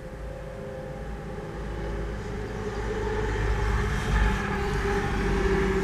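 Low rumble of an approaching freight train's GE diesel locomotives, growing steadily louder, with a heavy road truck passing about four seconds in.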